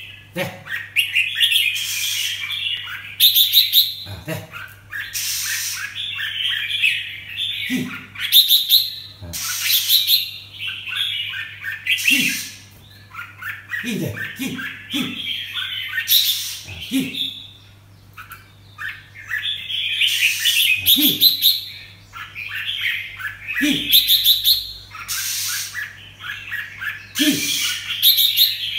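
Caged sooty-headed bulbul (merbah jambul) calling over and over in bursts of rapid chattering notes, the bursts a second or two apart, with a faint steady hum beneath.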